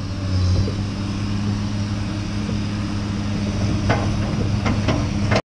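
Diesel engine of a Komatsu hydraulic excavator running with a steady low drone, with a few sharp knocks near the end before the sound cuts off abruptly.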